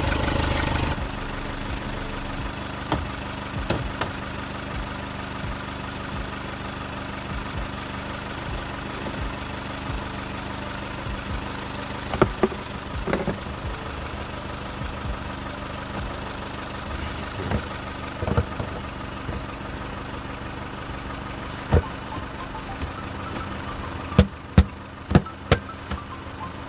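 VW Golf 1.4 four-cylinder petrol engine idling steadily, now firing on all four cylinders after a failed ignition coil on cylinder three was replaced. Scattered clicks and knocks sound over it, with a quick run of sharp knocks near the end as the plastic engine cover is pressed back onto its mounts.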